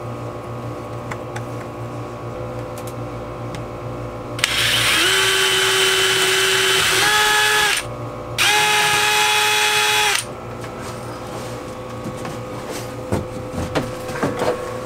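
Power drill running a twist bit into a plywood boat floor in two runs, about three seconds and then two, its motor whine climbing as it gets up to speed on the first. A few light knocks near the end.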